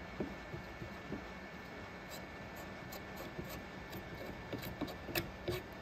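Hot-air gun blowing with a steady hiss while a razor blade presses and scrapes melted LDPE plastic into a patch on a polyethylene fuel tank. The blade gives a scatter of small clicks and scrapes, the sharpest near the end.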